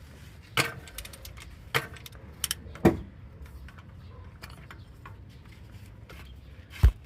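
Hand tools clinking and knocking against metal while the starter motor and its bracket are unbolted: a handful of sharp separate clinks, the loudest near the end.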